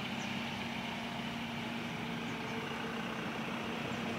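A small sedan's engine running steadily at low revs as the car drives slowly past.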